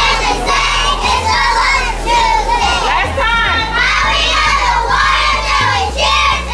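Young girl cheerleaders chanting and shouting a cheer in unison, loud and rhythmic, over a low bass line.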